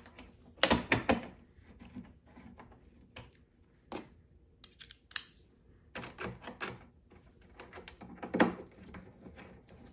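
Irregular small clicks and taps of hardware being worked by hand: bolts and T-nuts being turned and seated in the slot of the X-Carve's aluminium Y-axis rail to hold a stiffener panel. The loudest knocks come about a second in and again near the end.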